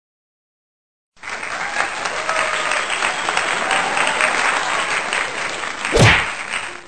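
Crowd applause, coming in suddenly after about a second of silence, with a loud whoosh about six seconds in.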